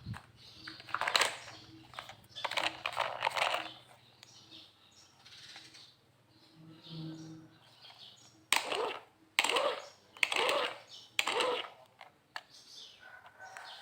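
Plastic toy vehicles clattering and rattling as they are picked up and handled in a basket, in a series of short, uneven bursts.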